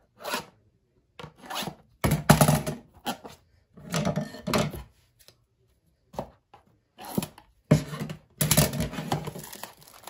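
Scissors scraping and slitting the plastic shrink wrap on a cardboard box of trading cards, then the wrap being pulled off, in a series of short rasping, crinkly rubs.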